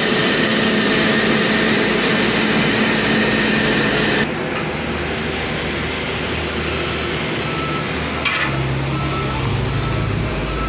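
Heavy road-construction machinery with diesel engines running steadily. About four seconds in the sound changes abruptly to a lower, deeper engine note, with a brief knock a few seconds later.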